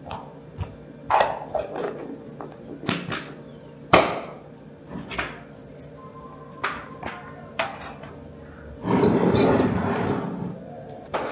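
Scattered sharp knocks and taps of a knife and a plastic container on a plastic cutting board. Near the end comes a louder stretch of a metal spoon scraping and stirring ground meat in a glass jug. Soft background music plays under it.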